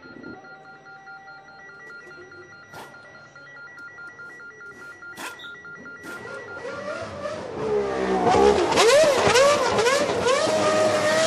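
Faint repeated electronic beeps, then a 1993 Formula 1 car engine that grows loud from about halfway, its pitch rising and falling again and again as it revs.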